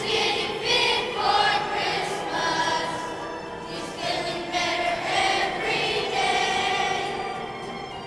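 A children's choir of fifth-grade voices singing a song, the sustained notes changing pitch phrase by phrase; the singing eases off toward the end.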